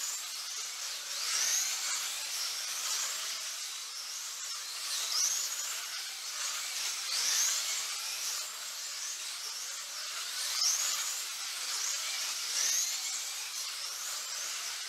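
1/24 scale GTP slot cars racing: high-pitched electric motor whine, with a rising whine every second or two as cars come past.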